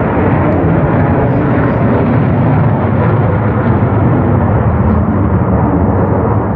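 Loud, steady roar of a jet aircraft's engines.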